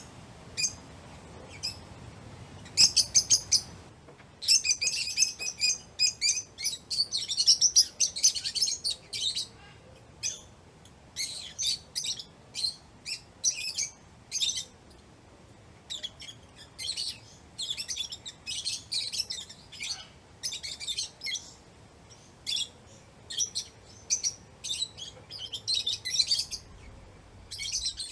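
Lovebirds chirping: several birds calling at once in rapid, high-pitched clusters of short chirps, separated by brief pauses.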